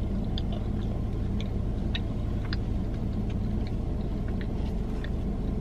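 Steady low hum of a car running, heard inside its cabin, with faint scattered small clicks over it.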